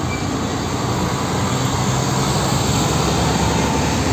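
A steady, loud rushing noise with a low engine-like rumble underneath.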